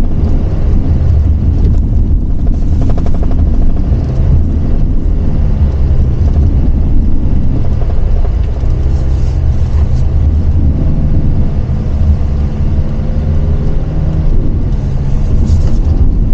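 A low, steady rumble inside the cabin of a Hyundai Staria Lounge van climbing a narrow hillside lane. The noise is mostly from equipment loaded in the back shaking as the van moves; the engine itself hums quietly on the climb.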